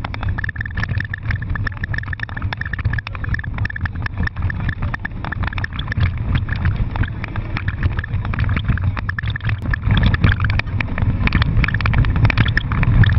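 Car engine running hard with road and tyre noise, heard from inside the cabin during fast driving; it grows louder toward the end.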